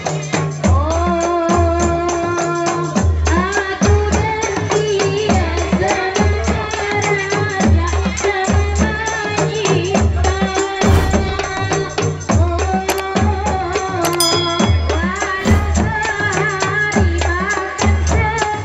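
A woman singing a devotional-style melody into a microphone, accompanied by a women's group on rebana frame drums and jingle tambourines. The drums keep a steady low beat of about one stroke a second, with the rattling jingles of the tambourines over it.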